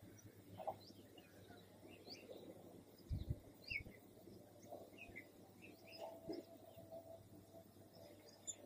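Faint scattered chirps of small birds, with a brief low thud about three seconds in.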